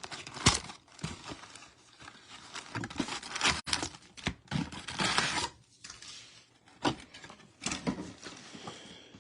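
Cardboard trading-card display box being opened and handled: irregular tearing, crinkling and scraping of cardboard and wrapping, with a few sharp clicks.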